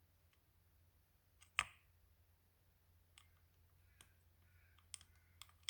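Quiet, sparse clicks of small metal engine parts being handled as a piston and wrist pin are worked off the connecting rod of a 57cc twin engine. One sharp click comes about one and a half seconds in, followed by a few lighter ticks, over a faint low hum.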